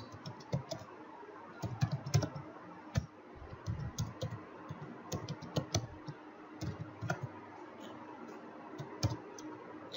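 Computer keyboard typing: irregular keystrokes in short runs with brief pauses between them.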